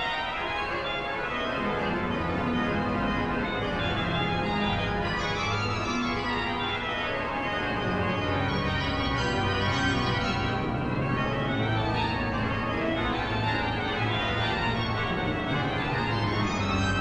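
The great Van den Heuvel pipe organ of Saint-Eustache, played as a free improvisation in dense, sustained full chords. Low bass notes come in about two seconds in and grow stronger after about eight seconds, under a steady, full sound.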